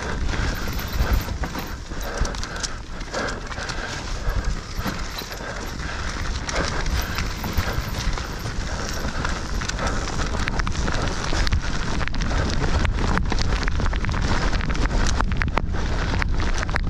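Mountain bike riding fast down a dirt woodland trail: a steady rumble of tyres on the ground and wind, with the bike rattling and knocking over bumps and roots.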